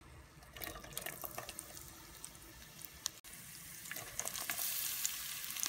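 Oil heating in a pan, ticking and crackling lightly, then diced onion dropped into the hot oil: a louder, steady sizzle builds from about four seconds in.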